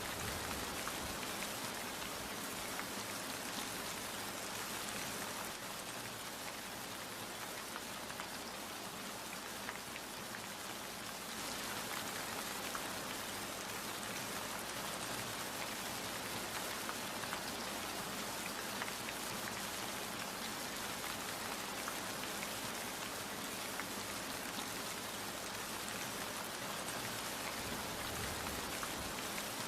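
Steady rain falling: a dense, even hiss with many separate drop hits. It eases a little for several seconds near the start, then returns to its earlier strength.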